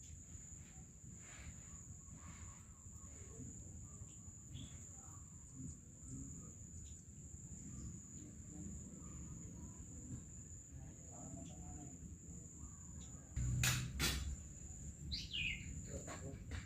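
Soft, scattered chirps from long-tailed shrikes over a steady high-pitched insect trill. A knock sounds about three seconds before the end, followed by a short falling call.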